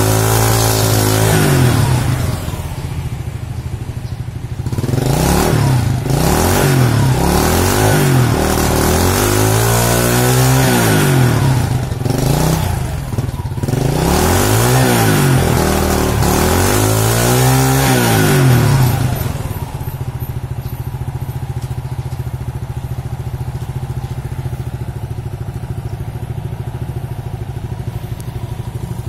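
Honda Astrea Grand's small four-stroke single-cylinder engine being revved by hand on the stand after a morning start, its pitch rising and falling in a string of throttle blips. About two-thirds of the way in it drops back to a steady idle.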